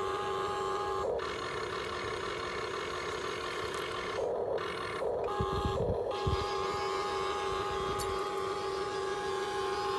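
Electric motors of a Huina 1592 RC excavator whining steadily, cutting out briefly and starting again a few times, with a few low thumps around the middle.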